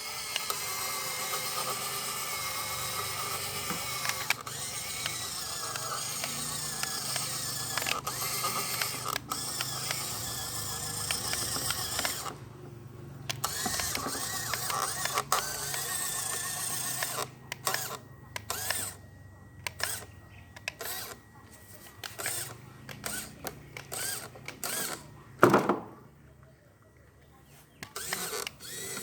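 Small gear motors and gearing of a miniature Kubota DC-105X combine harvester whirring. It runs steadily at first, then in short stop-start bursts, with one loud knock late on.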